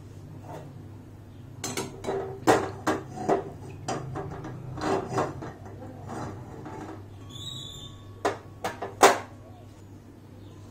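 Metal clanks and knocks of an aluminium kadai being gripped with metal tongs and tilted on a gas stove's burner grate: a run of sharp knocks over a few seconds, then two more near the end.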